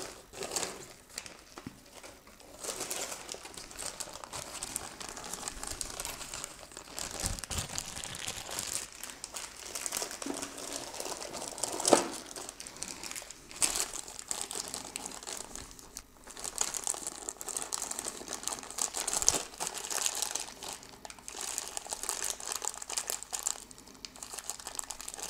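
Small plastic parts bags rustling and crinkling as they are rummaged through by hand, with a few sharper clicks.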